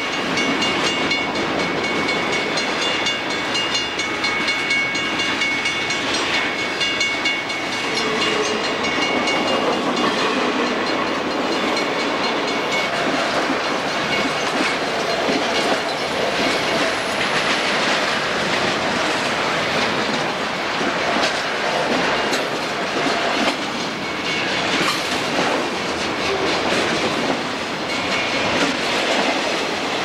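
Southern Pacific intermodal freight train's flatcars, loaded with trailers and containers, rolling past close by, wheels clattering steadily over the rail joints. A high steady ringing sounds over it for about the first eight seconds.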